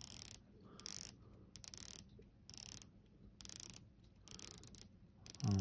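The 120-click unidirectional ratchet bezel of an Aquanero Hydrosphere dive watch being turned by hand. It makes short runs of rapid clicks, about seven in all, roughly one run a second, each lasting about half a second.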